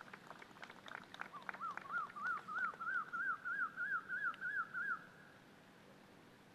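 A bird calling: a run of about a dozen quick up-slurred notes, about three a second, that stops about five seconds in, after a scatter of faint ticks.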